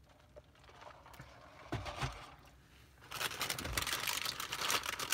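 Packaging crinkling as it is handled, loud and dense for about two seconds starting about three seconds in, after a couple of dull thumps.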